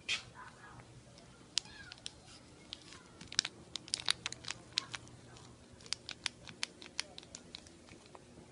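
A small plastic glitter packet crinkling in the fingers as it is handled: irregular sharp crackles, thickest in the middle.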